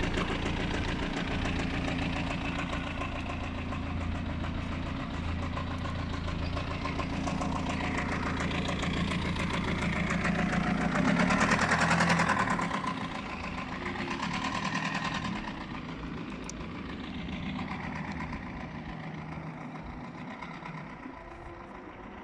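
BMW 320d E46's four-cylinder diesel engine running steadily with a low hum. It gets louder for a second or two around the middle, then the low hum drops away and the sound grows quieter.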